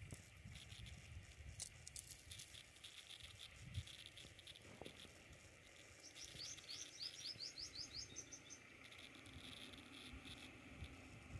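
Faint outdoor ambience: low rumbling and light clicks, with a quick run of short, high, rising chirps about two-thirds of the way through.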